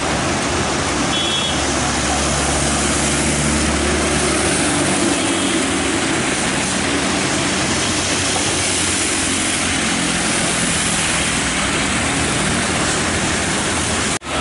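Traffic on a wet road: vehicle engines running and tyres hissing on the wet surface as cars pass, a steady loud noise throughout.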